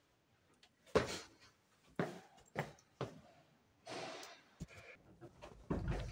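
A few sharp knocks and bumps about a second apart, as things are handled and set down on metal storage shelving, then a short rustling stretch and some low bumps near the end.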